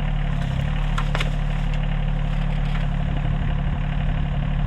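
Rural King RK24 compact tractor's diesel engine running steadily at idle.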